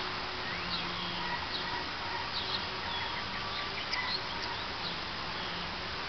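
Outdoor ambience of small wild birds chirping, many short high calls scattered over a steady hiss, with a faint low hum underneath.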